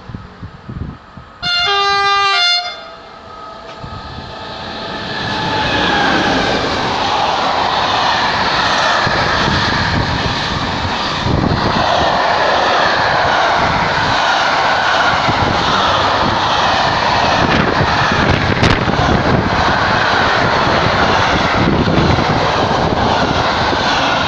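Freight train locomotive sounds one horn blast of about a second, near two seconds in. The train then draws near and passes close, its container and hopper wagons rolling by with loud, steady wheel-on-rail noise and knocking.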